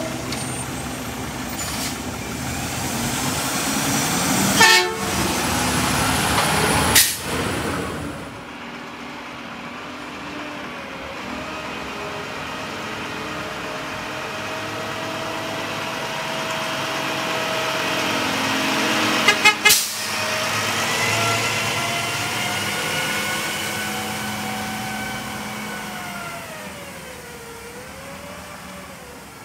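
Mack front-loader garbage trucks' diesel engines running as they drive, with short horn toots: two a few seconds apart in the first part, and a quick run of three about two-thirds of the way through. Later the truck's engine note glides up and down as it pulls away.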